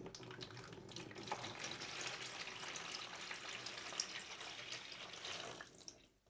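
Cold water poured from a plastic measuring jug into a plastic storage box: a steady splashing stream that thins out and stops near the end.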